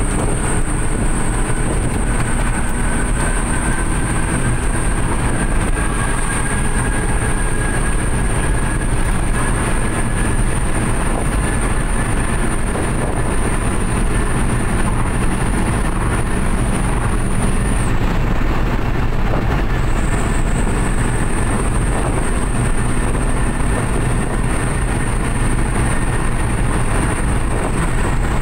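Suzuki New Carry pickup cruising at speed under a load of about 800 kg, heard from inside the cab: a steady drone of engine and road noise. A faint whine rises slowly in pitch over the first ten seconds, and a thin high whine runs above it, dropping out briefly about eighteen seconds in.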